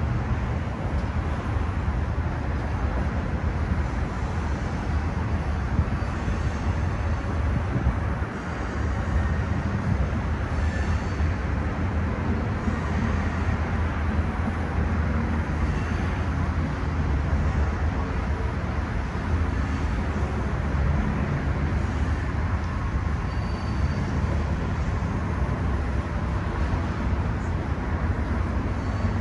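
Freight train rolling across a rail bridge: a steady low rumble of wheels on the rails, without a break.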